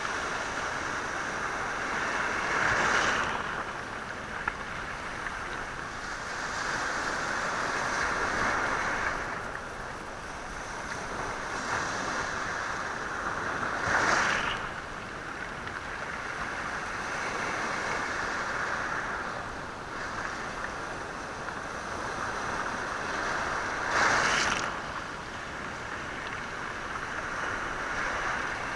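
Sea waves washing onto a rocky shore, stones rattling in the surf as the water runs over them. A steady wash swells and ebbs, with three louder surges: one near the start, one in the middle and one near the end.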